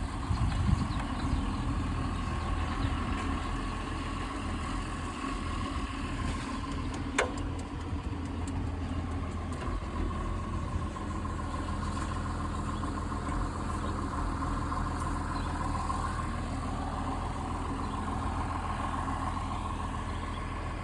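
Renault Temis tractor's diesel engine idling steadily, with a steady whine above the engine note. There is one sharp click about seven seconds in.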